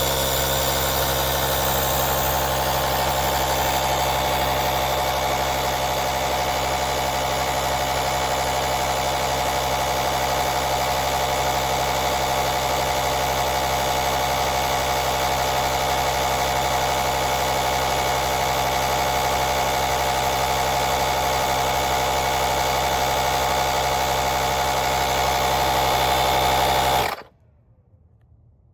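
Portable jump starter's built-in 150 PSI air compressor running steadily, then switching off abruptly near the end.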